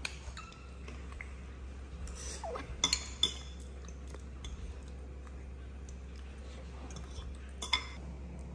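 Metal spoons clinking against a glass bowl and a ceramic bowl while scooping mashed potato: a few sharp clinks, a quick cluster about three seconds in and one more near the end.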